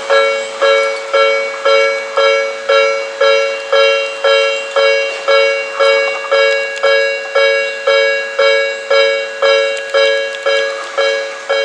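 Japanese railway level crossing alarm ringing its repeating ding, about two strikes a second, each strike fading before the next. It is the warning that a train is approaching or passing and the crossing is closed.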